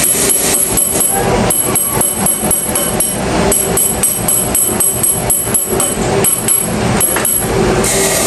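Rapid hammering on metal, about four strikes a second, over the steady hum of a running machine.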